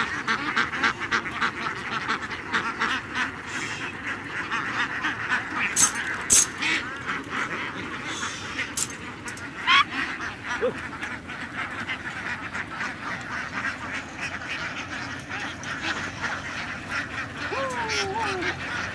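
A large, tightly packed flock of laying ducks quacking continuously as it is driven up a loading ramp, with a few sharp clicks about six seconds in.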